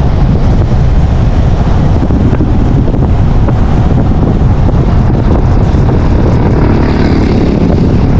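Steady wind buffeting the microphone over the low rumble of a moving car.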